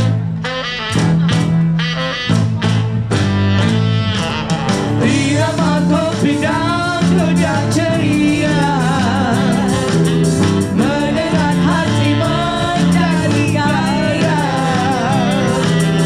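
Live dangdut band playing, with a steady bass line, drums and keyboard. Sharp drum strokes stand out in the first few seconds, and a sung melody with a wavering vibrato comes in about five seconds in.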